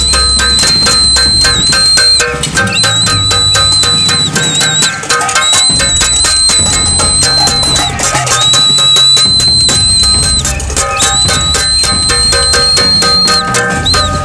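Pots and pans being beaten rapidly in a dense, loud clatter of metal strikes with ringing overtones, as a street protest. A whistle sounds over it in long held blasts of about two seconds, five times.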